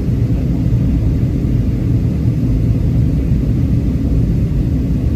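Steady low rumble inside the cabin of a Boeing 737-800 in flight: its CFM56 jet engines and the rush of air past the fuselage, heard from a window seat.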